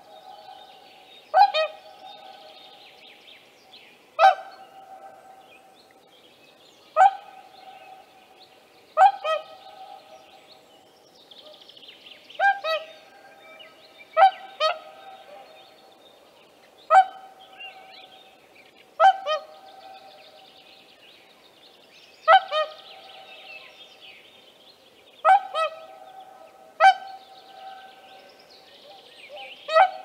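Whooper swan giving short, loud, bugling honk calls, one at a time or in quick pairs, every two to three seconds.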